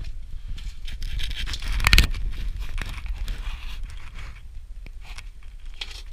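Someone moving over rock and grit: irregular scraping and crunching, with the loudest scrape about two seconds in.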